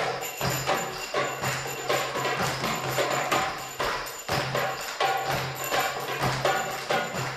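Live hand-drum ensemble of doumbeks (goblet drums) and African drums playing a fast, busy rhythm. Finger cymbals (zills) ring high and steady over the strokes.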